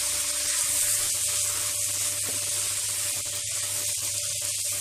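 Pasta with tomatoes and pesto sauce sizzling in a hot non-stick pan while being stirred with a wooden spatula: a steady high hiss with a faint hum beneath it.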